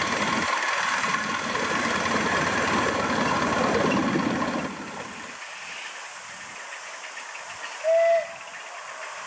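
Ride-on miniature live steam locomotive running, heard from the footplate: a steady hiss with the rumble of wheels on rail, dropping to a quieter, more distant rumble about five seconds in. Near the end comes one short, sharp toot of the steam whistle, the loudest sound.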